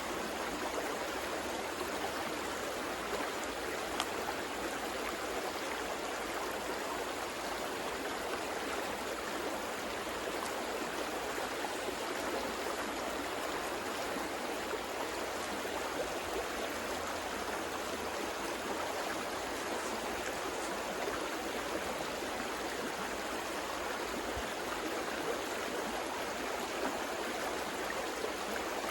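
River water flowing in a steady, even rush, with small splashes and gurgles over the top.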